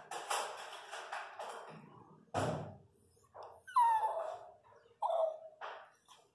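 Pinscher bitch in labour whining: two short, falling whines about four and five seconds in. Before them comes rustling and scratching on the mat, with a thump about two and a half seconds in.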